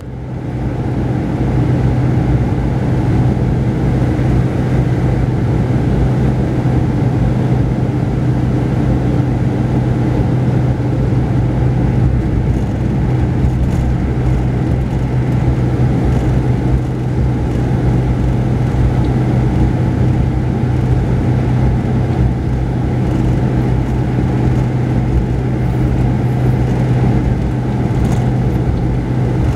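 Mercedes-Benz O-500RSD coach's diesel engine running steadily under way, a constant low hum mixed with tyre and road noise, heard from inside the upper-deck cabin of the double-decker.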